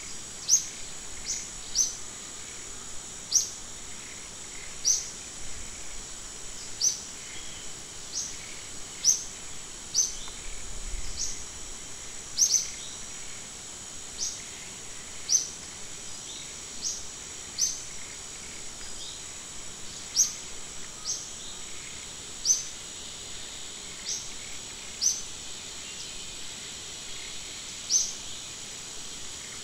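Outdoor forest ambience: a steady high-pitched insect drone, with a bird repeatedly giving short, sharp, high chirps at an irregular pace of about one every second or two.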